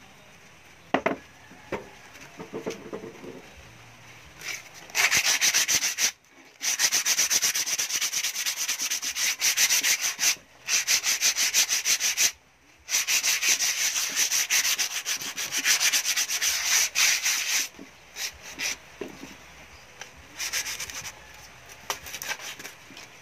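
Sandpaper rubbed by hand over a rusty perforated steel speaker grille, sanding the rust off in quick back-and-forth strokes. The strokes come in long runs with two brief pauses, then a few scattered strokes near the end. A few knocks come before the sanding starts.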